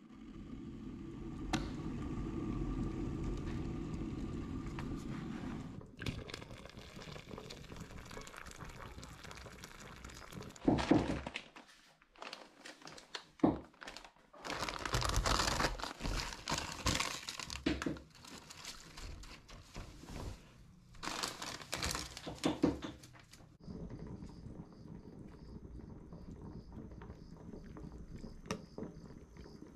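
Kitchen sounds in turn. First a red electric kettle heating with a steady low rumble for about six seconds. Then a few sharp knocks and a plastic packet of dried rice noodles crinkling as it is handled. Near the end comes a faint steady hiss from a pot of beef-bone stock simmering.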